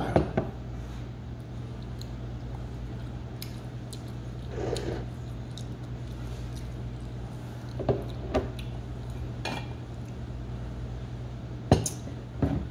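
Glassware and dishes knocked on a table: a small glass set down right at the start, then a few more clinks about eight seconds in and near the end, over a steady low hum.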